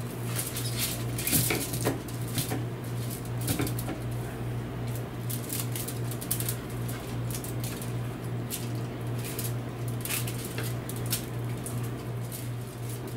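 Scattered clicks, clinks and rustles of handling as a metal rotisserie spit and its forks are worked into a raw chuck roast lying on parchment paper and aluminium foil, over a steady low hum.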